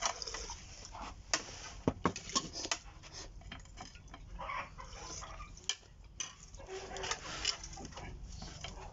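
Dishes and spoons clinking and knocking on plates at a meal table, in scattered irregular clicks.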